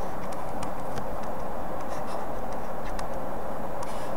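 Stylus scratching and tapping on a tablet surface while handwriting, a scattering of light ticks, over a steady background hiss.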